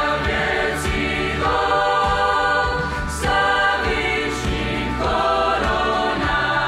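Mixed youth choir singing a Romanian hymn in several voice parts, with the chords changing every second or so.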